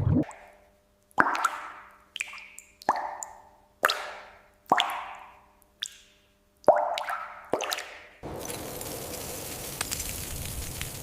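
A string of about eight separate plopping, water-drop-like sound effects, each a sharp hit that dies away within about half a second, over a faint low steady hum. About eight seconds in they give way to a steady even hiss of rustling ambience.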